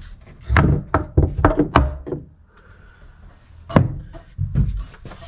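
Hammer blows knocking against a wall, a quick run of about six in the first two seconds, then a pause and a few more, the loudest a little under four seconds in.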